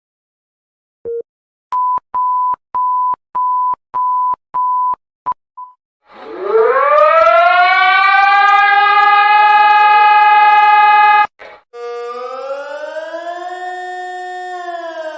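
Emergency alert tones: a single low beep, then a quick run of seven short, higher beeps. About six seconds in, a loud siren winds up from low pitch to a steady held tone, then cuts off suddenly. A quieter siren follows, its pitch slowly rising and falling.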